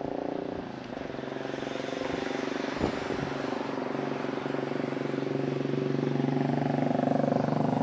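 Airbus A330-900neo's Rolls-Royce Trent 7000 turbofans on final approach, a steady jet hum with a hiss over it that grows louder as the airliner nears. A single short knock about three seconds in.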